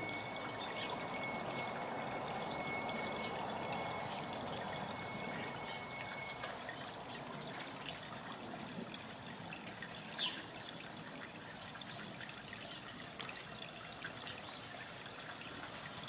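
Backyard bird watering station trickling water steadily. A bird gives one short high chirp about ten seconds in.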